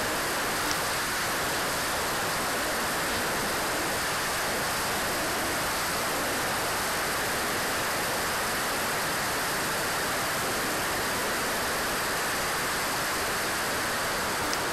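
Steady, even rushing noise of an RC jet in flight, heard from its onboard camera: airflow over the airframe and the Swiwin SW60 turbine blended into one constant hiss.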